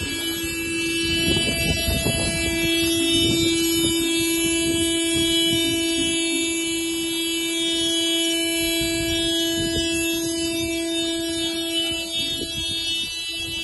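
A vehicle horn sounding one steady, unbroken tone for about twelve seconds, fading out near the end.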